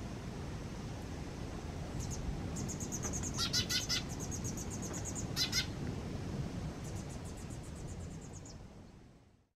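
Fledgling white wagtail begging calls: runs of rapid, high-pitched chirps, with two louder, fuller calls about three and a half and five and a half seconds in. The sound fades out near the end.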